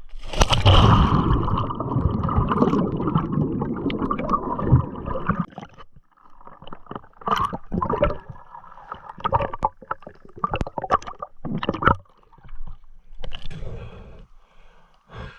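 River water splashing and gurgling close to the microphone: a loud continuous rush for about the first five seconds, then broken into scattered splashes and knocks.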